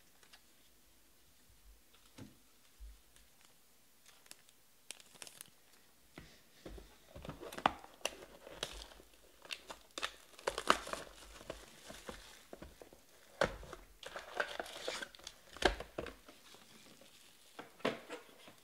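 Plastic shrink-wrap crinkling and tearing as a sealed box of trading cards is unwrapped and opened, with sharp crackles throughout. The first few seconds hold only faint scattered ticks of handling; the crinkling starts about six seconds in and dies away near the end.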